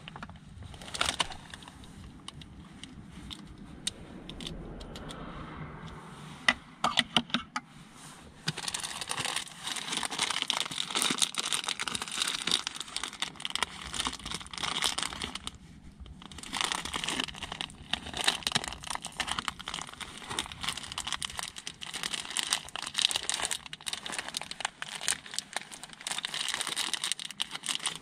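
Plastic food packaging crinkling and rustling as it is handled by hand, in irregular bursts with a short pause partway through.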